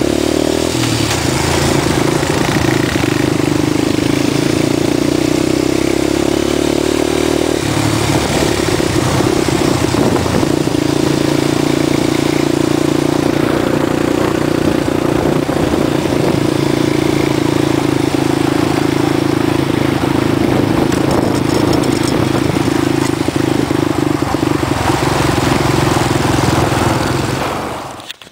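Quad bike (ATV) engine running steadily while riding, heard up close, its note shifting slightly about seven seconds in. It stops near the end.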